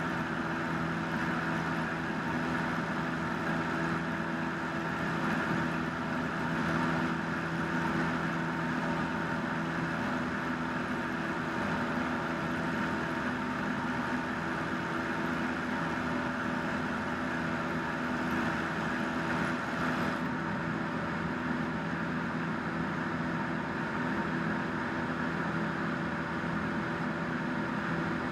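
Single-engine light plane's piston engine and propeller droning steadily in flight, heard inside the cockpit with the rush of air around the cabin.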